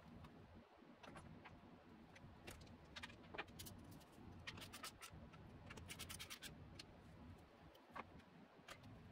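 Faint, scattered light clicks and clinks of small metal parts being handled, with a quick run of clicks about four and a half seconds in.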